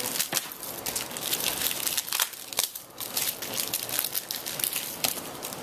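Plastic and foil wrappers of baseball card packs crinkling and crackling as hands open them and handle the cards, with a few sharp clicks.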